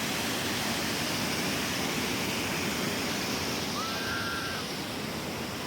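Steady rushing outdoor noise, with one short thin high note a little after halfway.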